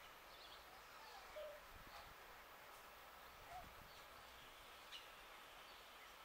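Near silence: faint outdoor ambience with a few brief, faint bird chirps scattered through it.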